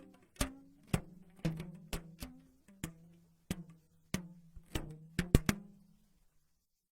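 Percussive horror sound effect: sharp wood-block-like knocks at an uneven pace over a low droning tone. A quick cluster of hits near the end is the loudest, then it fades out.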